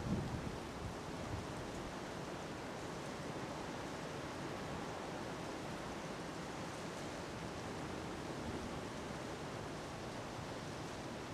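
Windstorm wind making a steady rushing noise, with a brief low buffeting of wind on the microphone at the very start.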